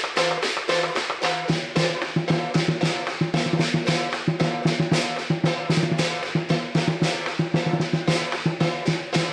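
Southern lion dance percussion: the big lion drum beating a fast, driving rhythm together with clashing cymbals and gong. A quicker run of drum strikes comes about two seconds in.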